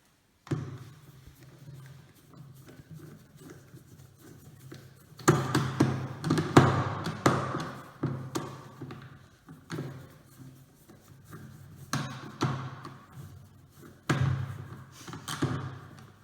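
Irregular taps, knocks and clatter of plastic parts being handled, as wheels are fitted and screwed onto the base of a wet-dry vacuum cleaner, with busier bursts of knocking about five seconds in and again near the end.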